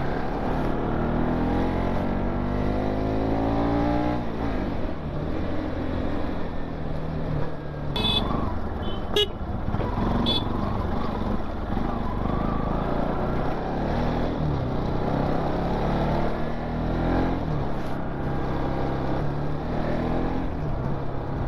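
Bajaj Pulsar NS200's single-cylinder engine rising in pitch as the bike accelerates over the first few seconds, then running steadily at riding speed. Three short horn beeps sound about eight to ten seconds in.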